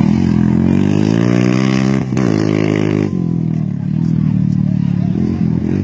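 Racing motorcycle engine revving hard under acceleration: its pitch climbs for about two seconds, dips briefly at a gear change, climbs again, then drops back about three seconds in.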